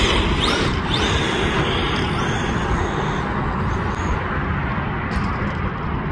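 RC car motor whining, with quick high glides in pitch as the throttle changes, and its tyres churning through loose sand over a steady noisy rush. The sound eases off gradually as the car pulls away.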